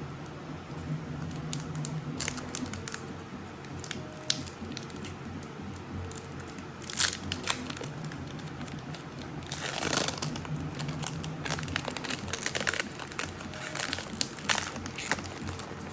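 Plastic packaging crinkling and tearing as a Pokémon booster box and its packs are unwrapped, in scattered crackles with a longer tearing stretch about ten seconds in.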